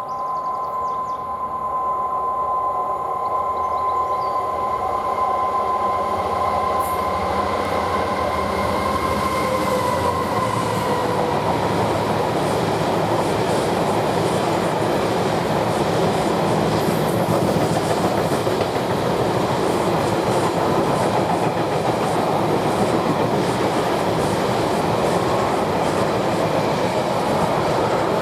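A train passing close by. A steady engine whine drops slightly in pitch about ten seconds in, and then the loud rush and clatter of wheels on the rails fills the rest.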